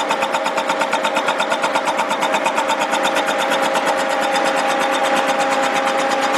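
Vertical milling machine running with its face-milling cutter turning over a freshly decked cast-iron Willys L-134 block: a steady mechanical hum with a rapid rhythmic pulsing about six times a second that fades in the second half.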